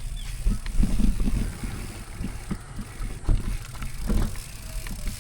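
Wind buffeting the microphone over the bumps and rattles of a mountain bike riding over rough ground, with irregular knocks and clicks.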